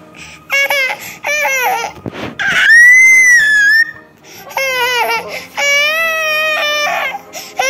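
A toddler crying in long, high-pitched wails, about five of them, with a shrill scream about three seconds in that is the loudest sound.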